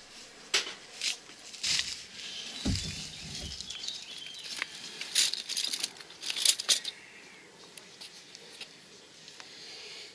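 Scattered clicks, knocks and rustling from food being handled on a wooden chopping board, with a couple of dull thumps about two and three seconds in. It goes quieter after about seven seconds.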